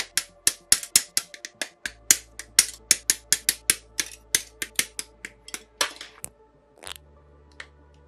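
Side cutters snipping plastic model-kit parts off their runners: a rapid run of sharp clicks, about five a second, thinning to a few scattered clicks after about six seconds as parts are fitted together.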